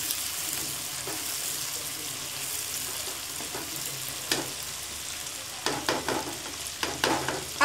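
Chicken pieces sizzling in oil in a karahi, stirred with a spatula. Sharp clicks of the spatula against the pan come from about four seconds in and cluster near the end.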